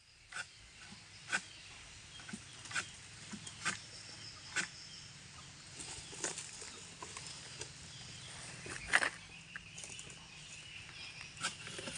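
Irregular sharp snaps and crackles of oil palm fronds as a long-pole harvesting sickle is worked into the palm crown, with leaves rustling between them. The loudest crack comes about nine seconds in.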